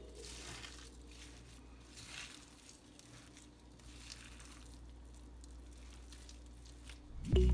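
Faint, soft squishing of raw ground meat mixture being worked, with a few quiet wet smacks.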